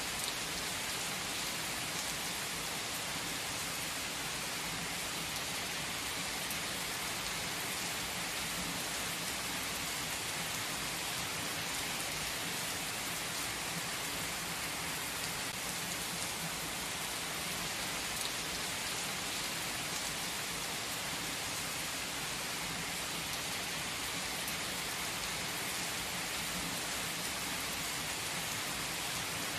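Heavy rain pouring steadily onto asphalt and parked cars: a dense, even hiss of splashing drops.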